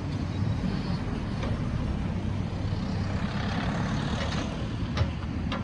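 Fire engine's diesel engine running steadily at idle, with a car driving past close by about halfway through. Two sharp knocks near the end.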